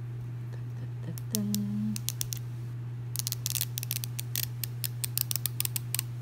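The wrapper of an L.O.L. Surprise toy ball being peeled and torn open by hand, a run of sharp crackles and clicks from about three seconds in. A steady low hum sits underneath, with a brief low tone about a second in.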